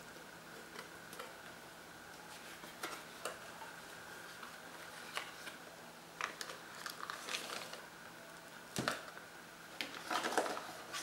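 Cardboard packaging being opened and handled by hand: flaps and an inner cardboard tray scraping and sliding, with light taps and rustles that get busier in the second half, including a sharper knock about nine seconds in.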